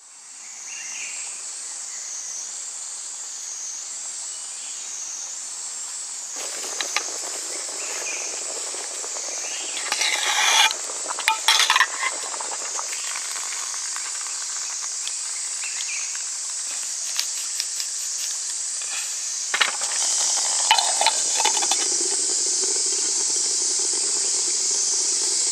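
Insect chorus: a steady high-pitched chirring drone that pulses gently at first, with scattered clicks and knocks about ten seconds in and again near twenty seconds.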